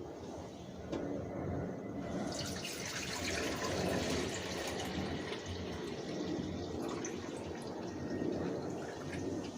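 Water pouring from a dehumidifier's collection bucket into a container, a steady splashing pour that starts about a second in and gets fuller about two seconds in.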